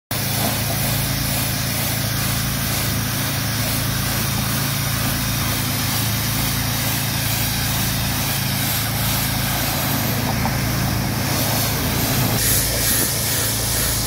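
Steady engine drone of a truck-mounted pressure washer, with the hiss of its high-pressure water jet blasting a concrete bridge barrier. The spray hiss grows louder and brighter near the end.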